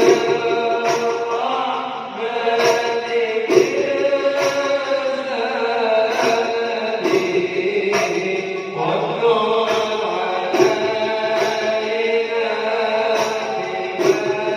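Shalawat, an Arabic devotional song praising the Prophet, sung by a male singer in long, melismatic lines over a steady beat of percussion strokes about once a second.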